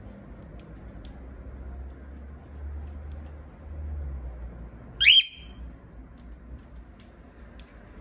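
A cockatiel gives one short, loud rising whistle about five seconds in. Faint scattered clicks come from beaks pecking at a millet spray.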